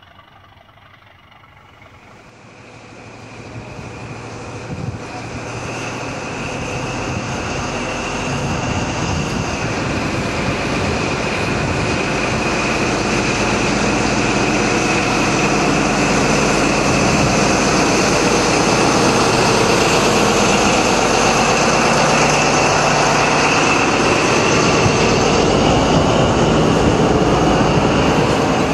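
Diesel train running: the engine noise swells over the first several seconds to a steady, loud run with a high whine held on top.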